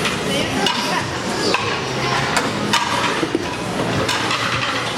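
Busy restaurant din: background voices and music, with a few sharp clinks of dishes.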